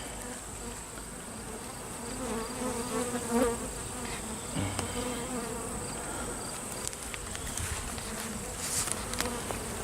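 Honeybees buzzing around an opened hive, a steady hum that wavers in pitch as bees fly past close by, with a few light clicks. The bees are agitated and defensive, flying at the beekeeper's veil during a nectar dearth.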